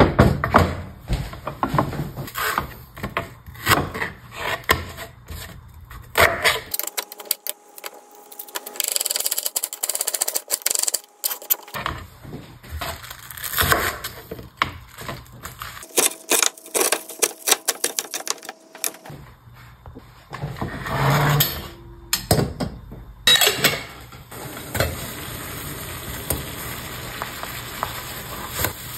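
A knife chopping onion and bok choy on a plastic cutting board: runs of quick sharp knocks with short breaks. In the last few seconds, a steady hiss of red broth boiling in a small yellow aluminium pot on a gas burner while a spoon stirs it.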